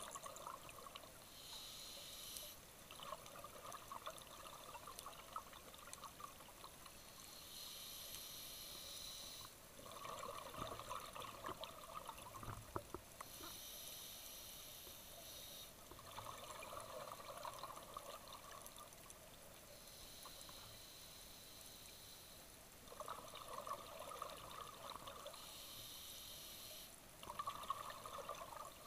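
Scuba diver breathing through a regulator underwater: a short hissing inhale, then a longer burble of exhaled bubbles, repeating in a slow cycle about every six to seven seconds.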